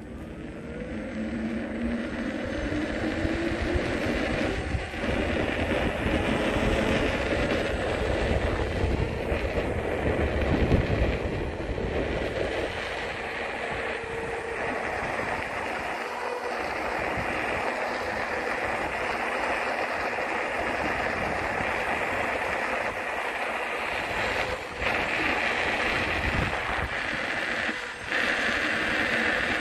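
Steady rushing and rumbling noise of riding along a street: wind and road noise on the microphone. A faint rising tone sounds in the first two seconds.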